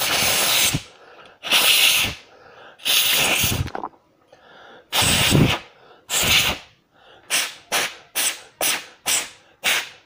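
Hard mouth blows into an opened DualShock 4 controller's analog stick to blow dirt out of its potentiometers: five long blows, then a run of quick short puffs, about three a second.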